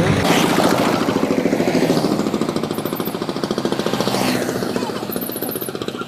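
Small motorcycle engine running at low speed as the bike rolls along, a rapid, even putter.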